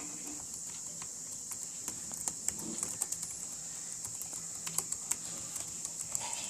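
Typing on an HP Elite V2 wireless keyboard: soft, irregular clicks of its quiet chiclet keys, barely above a steady high hiss.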